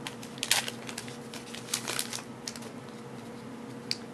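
Trading cards being handled and flipped through: a few short slides and taps in the first couple of seconds, then a single click near the end, over a faint steady hum.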